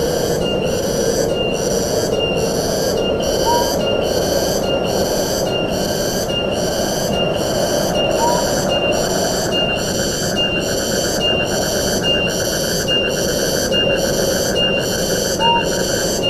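Forest ambience: a high insect chorus pulsing evenly about twice a second over a steady rushing background. A second, faster insect buzz joins about ten seconds in, and a short rising bird note is heard a few times.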